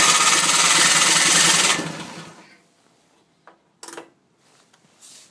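Briggs & Stratton snowblower engine cranking for about two seconds with a rapid rattle, without catching, then winding down. A few short clicks follow.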